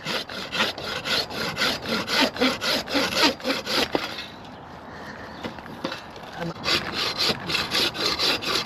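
Hand saw cutting through a cherry branch in quick back-and-forth strokes, about three to four a second. The sawing stops about four seconds in and starts again a couple of seconds later.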